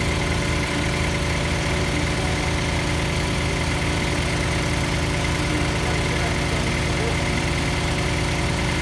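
Engine of a small trailer-mounted borehole drilling rig running steadily, with a low even throb and a faint steady high whine over it.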